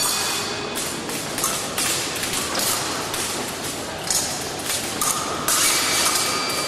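Footwork thumps and light taps of épée blades during a fencing bout, over the noise of a busy hall. About five seconds in, a steady electronic tone sounds for well over a second.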